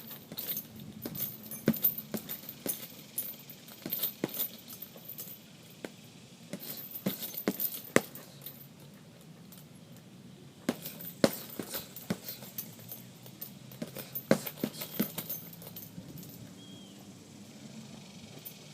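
Boxing gloves striking a heavy punching bag in quick combinations: clusters of sharp thuds, with short pauses between the combos.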